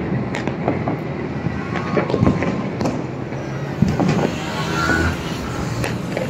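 Firecrackers and fireworks going off across a city at night: scattered, irregular pops and bangs over a steady background din.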